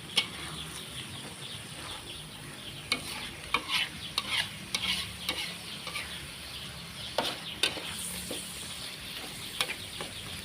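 Chicken sizzling in sweet soy sauce in a pan while a spatula stirs it, with repeated scrapes and clacks of the spatula against the pan.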